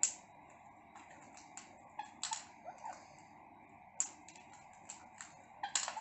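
Parrots' beaks pecking at seeds in a small plastic feeding tray: scattered sharp clicks and taps at irregular intervals.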